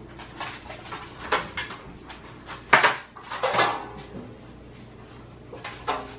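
Metal baking pans clattering and scraping as they are taken out of an oven, a string of sharp knocks with the loudest about three seconds in.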